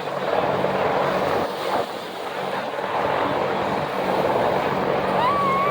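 Military helicopters flying over, a steady engine and rotor noise mixed with wind on the microphone. Near the end a short whistle-like tone rises and holds briefly.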